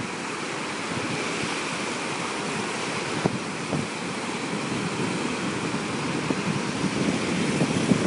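Gulf surf washing onto a beach: a steady hiss of breaking waves that swells louder near the end.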